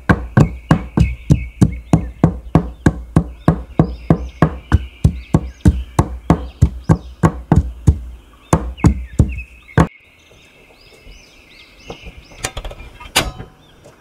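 Knife chopping rapidly on a cutting board, about three strokes a second, stopping about ten seconds in. Birds chirp in the background.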